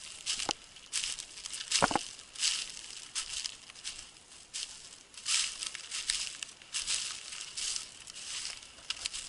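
Footsteps crunching and swishing through dry, dead grass at a steady walking pace, about one step every two-thirds of a second, with a short low thud about two seconds in.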